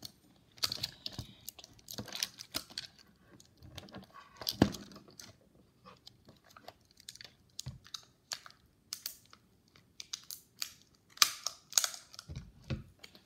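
Thin protective plastic film being peeled off a hard plastic toy dinosaur and its cage: irregular crackles and sharp clicks, with a louder snap about four and a half seconds in and a cluster of louder crackles near the end.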